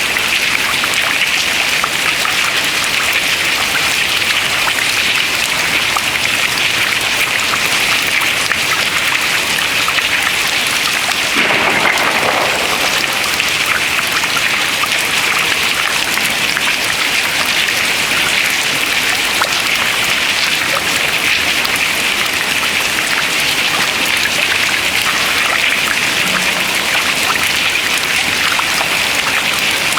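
Dense, steady patter of meltwater dripping from ice into water, like heavy rain. About a third of the way in, a brief lower, duller rush rises for about a second.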